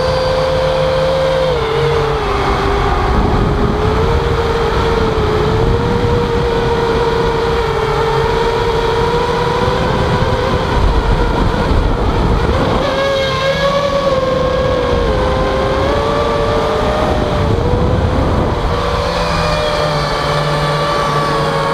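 Mini quadcopter's electric motors and propellers whining, picked up by its onboard camera. The pitch wavers up and down with the throttle over rushing wind noise, which swells about three seconds in and again around ten to twelve seconds.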